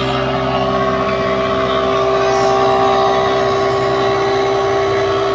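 Woodmaster 725 25-inch molder planer running steadily with a droning whine, planing a wood slab.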